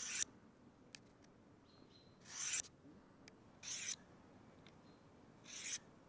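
The large blade of a 91 mm Swiss Army knife drawn along a Victorinox diamond-coated sharpener to sharpen the edge. Four short strokes of steel over diamond, each under half a second, spaced about one and a half to two seconds apart.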